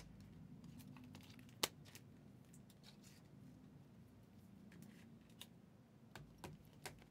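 Faint handling of a stack of trading cards, the cards sliding and flicking as they are leafed through. There is one sharp click about a second and a half in and a few soft ticks near the end, over a low steady hum.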